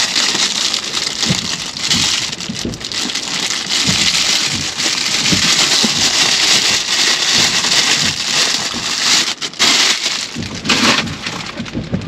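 A bread bag crinkling and rustling loudly as it is opened and a piece of coconut bread (pan de coco) is taken out, with two short breaks near the end.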